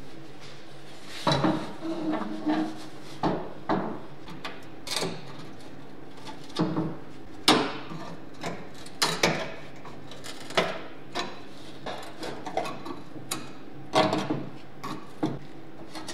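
Irregular metallic clicks, taps and scrapes as hand tools work on rusty sheet-metal oven parts, including a flat screwdriver prying up bent metal tabs. The strokes are sharp and uneven, under a steady low hum.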